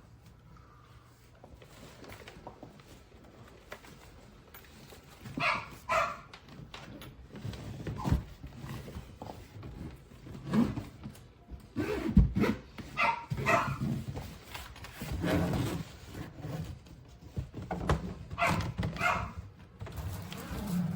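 A dog barking in quick doubled barks, a few times over, with a few dull thumps and knocks in between.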